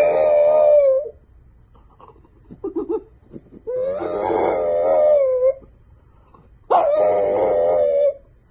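A dog howling: three long howls of about one to two seconds each, with a few brief sounds between the first two.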